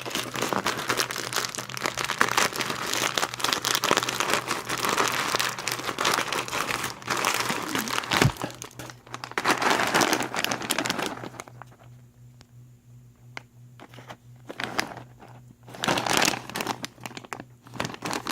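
Plastic packaging crinkling as a bag of plastic push-pin rivets is handled and opened. It goes quiet for a few seconds about two-thirds of the way through, with only scattered clicks, then crinkles again near the end.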